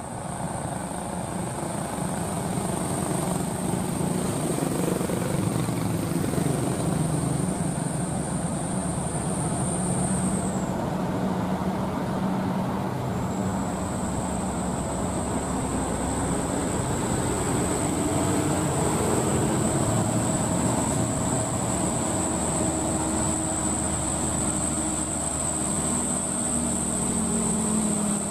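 Laden light dump truck's diesel engine pulling uphill under load: a steady, working engine note with road noise. A steady high whine runs over it and drops out briefly about ten seconds in.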